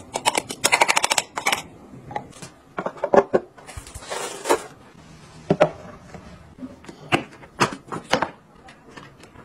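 Close handling of small plastic household gadgets. A quick run of plastic clicks and snaps as a clear plastic cup is fitted onto a handheld cleaner, a short rustle of a plastic-wrapped pack of face masks, then several single sharp clicks and taps.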